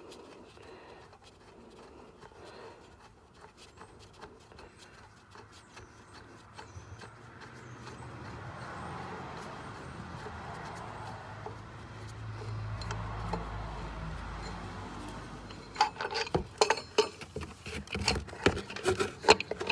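Light handling clicks, then a run of sharp metallic clinks and rattles in the last few seconds as the unbolted serpentine belt tensioner assembly is worked out past the engine's pulleys. A low hum swells and fades midway.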